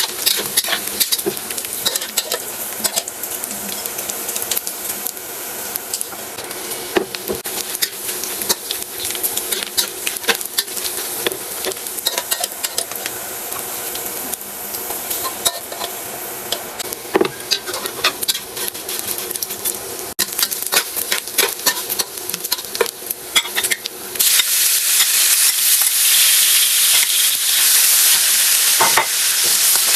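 Sizzling hiss of food frying in a pan, with many small clicks as it is stirred. The sizzle gets louder and brighter about 24 seconds in.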